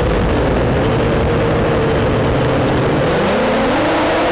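Drone's electric motors and propellers running with a steady hum, heard from the camera mounted on the drone itself; about three seconds in, the lower tone rises in pitch as the motors speed up.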